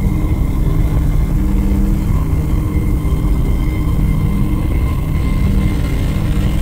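Ambient electronic drone track: a dense, low rumble with a few steady held tones over it and no beat.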